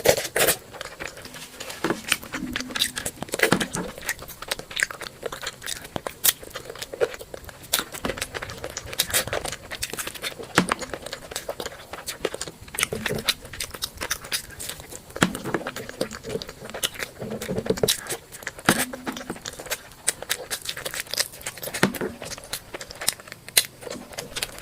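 Close-miked eating: chewing with many irregular wet mouth clicks, and now and then the tearing of food.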